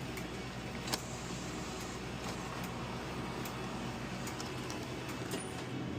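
Steady low mechanical hum over a background hiss, with a single sharp click about a second in.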